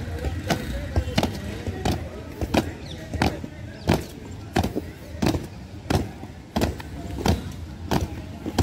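Marching boots striking a concrete parade ground in a steady rhythm of sharp footfalls. The heaviest steps come about every two-thirds of a second, with lighter ones between.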